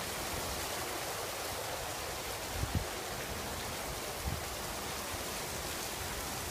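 Steady rushing of running water, an even hiss, with two soft low thumps near the middle.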